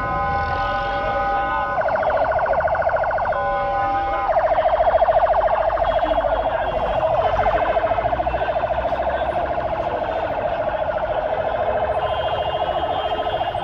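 Emergency vehicle's electronic siren, switching between a steady held tone and a very fast warble: held tone, then warble about two seconds in, a short held tone again, then fast warble for the rest.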